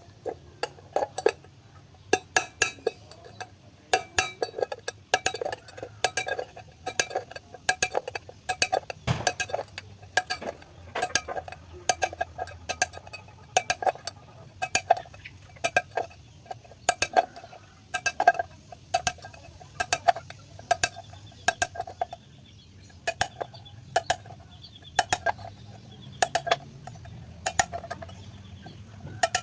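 Tin can being worked with a tool to punch a hole through its centre: repeated sharp metallic knocks and clinks, roughly one or two a second, with a short pause partway through.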